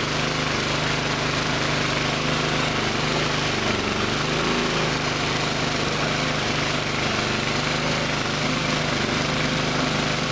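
Small gasoline engine of a home-built pressure washer running steadily under pump load, with the even hiss of the water jet spraying. The owner thinks the motor isn't running well and probably needs its carburetor cleaned.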